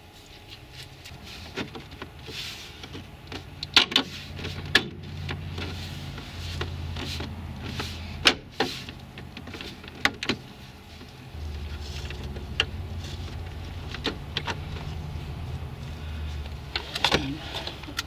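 Plastic trim clips of a car's door-pillar panel clicking and snapping as the panel is pressed into place around the seat belt, with the belt webbing sliding as it is pulled and checked. A low hum comes and goes beneath the clicks.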